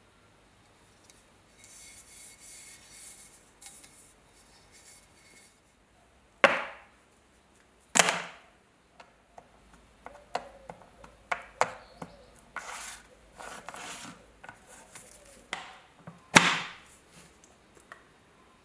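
Objects being handled and set down on a wooden work surface: soft rubbing, two sharp knocks about a third of the way in, then a run of light clicks and taps and another sharp knock near the end.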